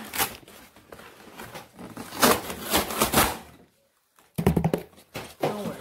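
Cardboard box and packing foam being handled, rustling and scraping in a run of sharp scuffs. The sound cuts out completely for about half a second about two-thirds through, and the loudest scuffs come right after.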